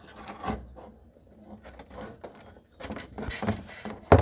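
Handling noises from working on the air cooler's pump and pipe: scattered clicks and rustling, with a sharp knock near the end.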